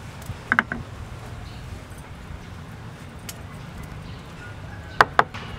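Sharp clinks of small dishes knocking together as seasoning is shaken out over a ceramic mixing bowl: a quick pair about half a second in and another pair near the end, over a low steady rumble.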